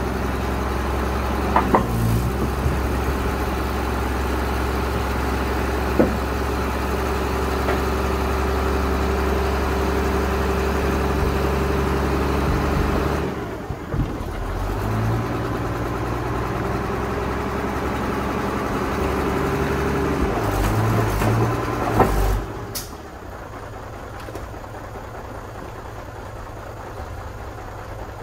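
A hook-lift lorry's diesel engine runs at raised speed to drive the hydraulic arm pulling the loaded fruit bin onto the truck, with a steady whine and a few sharp metal clanks. About 23 seconds in it settles to a quieter idle.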